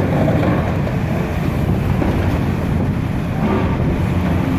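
Diesel engine of a demolition excavator running with a steady low rumble as it chews away at a half-demolished structure, with wind buffeting the microphone.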